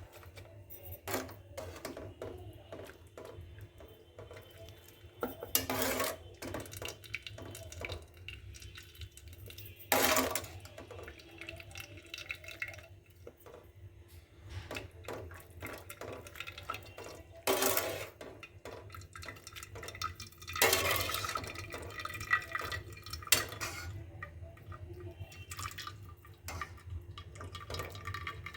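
Dishes, pots and utensils clinking and knocking at irregular moments, with several short rushing noises of about a second each.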